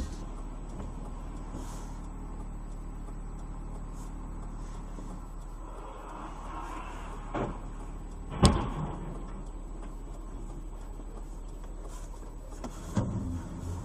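Steady low hum of a road vehicle running, with one sharp bang about eight and a half seconds in, a smaller knock just before it and another near the end.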